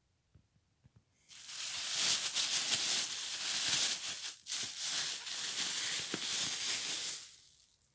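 Thin plastic shopping bag crinkling and rustling as a boxed tablet is pulled out of it, starting about a second in, with a brief pause about halfway through.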